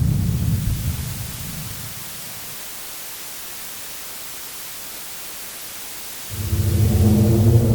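Bomb explosion sound effect: a deep rumble fades out over the first two seconds, leaving a steady hiss. A second low rumbling blast swells up about six seconds in.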